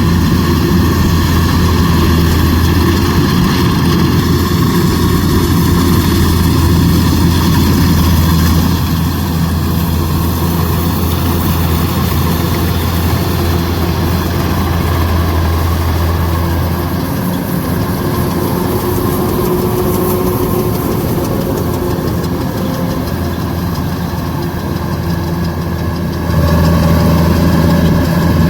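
Kubota DC105X combine harvester's diesel engine running steadily. It gets somewhat quieter past the middle, then louder again abruptly near the end.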